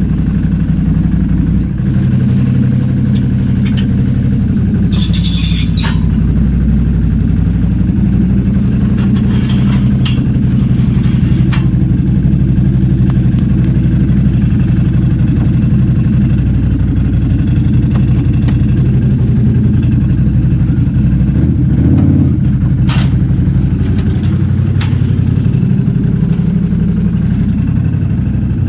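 A vehicle engine running steadily. There are a few short clicks and knocks about 5 seconds in, around 10 seconds in, and again near the end.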